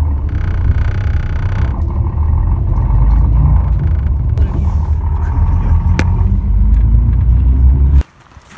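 Heavy low rumble of an SŽ 813/814 diesel railcar running, heard from inside the carriage, with a tone that rises over its last two seconds and a single click about six seconds in. About eight seconds in, it cuts off abruptly to much quieter outdoor sound.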